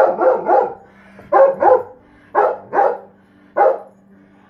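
Large dog barking in play, about eight barks in quick groups of one to three.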